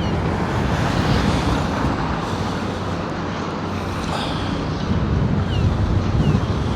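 Wind buffeting the microphone over a steady low rumble from a demolition excavator working on the building, with a few faint high chirps.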